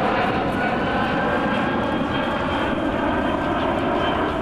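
Boeing E-767 AWACS's twin General Electric CF6 turbofans on a low gear-down pass overhead: a loud, steady rush of jet noise with faint whining tones that drift slightly upward in pitch.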